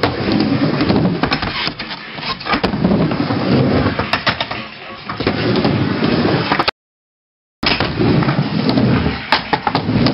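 Skateboard wheels rolling across a mini-ramp, a rumble that swells and fades with each pass, with sharp clacks of the board and trucks striking the ramp. The sound drops out to silence for about a second past the middle, then the rolling resumes.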